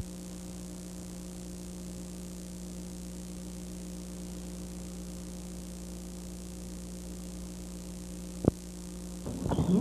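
Steady electrical hum on an old home-videotape recording, with one sharp click about eight and a half seconds in. Louder, busier room sound comes in just before the end.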